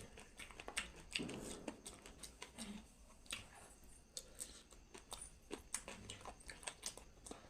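Close-miked eating sounds: irregular wet mouth clicks and smacks of chewing, several a second.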